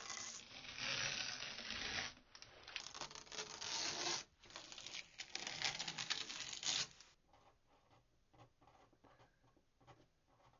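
Masking tape being peeled off the border of a painting on paper, in three long rasping pulls, each one a tearing sound.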